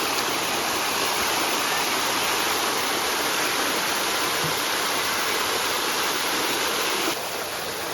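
Mountain valley stream rushing steadily over rocks, swollen after heavy rain; it becomes a little quieter near the end.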